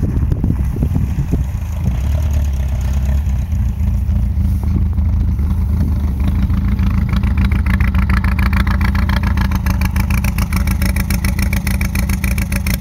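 Air-cooled Volkswagen Beetle flat-four engine running steadily, then idling with a fast, even clatter that comes through more plainly in the second half.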